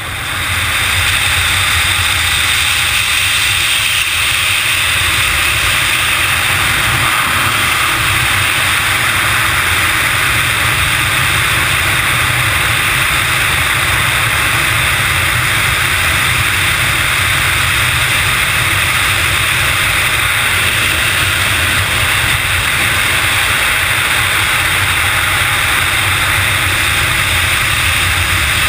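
Loud, steady rush of wind over a helmet-mounted camera during a wingsuit flight, building up over the first second after the jump and then holding.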